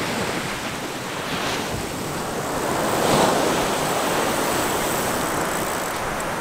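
Ocean surf washing up the beach, swelling about halfway through, with wind buffeting the microphone.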